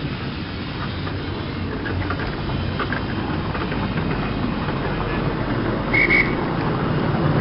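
Miniature ride-on steam train running with passengers aboard: a steady rumble of wheels on the track with a few light clicks, and a short double squeak about six seconds in.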